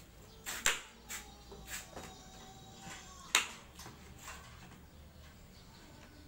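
Claw hammer prying the slats off a wooden shipping crate: a string of sharp wooden cracks and knocks, the loudest about two-thirds of a second in and again about three and a half seconds in.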